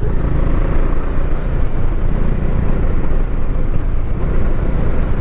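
Riding noise from a Bajaj Dominar 400 motorcycle at a steady cruise: wind rushing on the microphone mixed with the engine and tyres.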